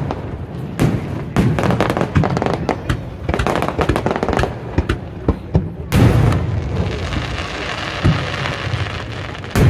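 Fireworks display: a rapid run of bangs and pops from bursting aerial shells, then a loud burst about six seconds in followed by a few seconds of crackling hiss, and another sharp bang near the end.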